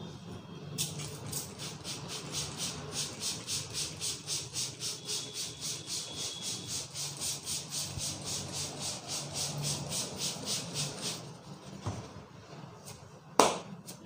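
Brisk rhythmic head-massage strokes on hair and scalp, about three to four a second, stopping about eleven seconds in. Near the end comes a single sharp, loud snap.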